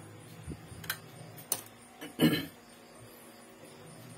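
A few light, sharp clicks and taps of laptop parts being handled during reassembly, with a brief voice-like sound about two seconds in.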